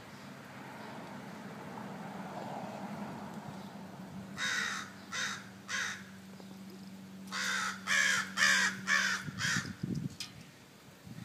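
Crows cawing: three harsh caws, then after a short pause a quicker run of about five more, over a steady low hum.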